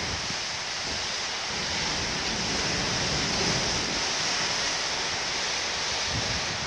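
Thunderstorm with heavy rain hissing steadily and strong wind gusts, the gusts buffeting the microphone in uneven low rumbles.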